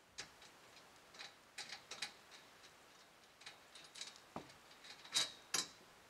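Metal clicks and clinks as locking pins are worked out of the holes in a metal tube canopy frame, irregular light ticks with two louder clinks near the end.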